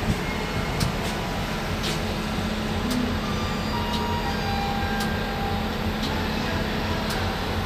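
Steady low machinery drone inside a diesel locomotive cab before its main engine is started, with a few faint high clicks scattered through it.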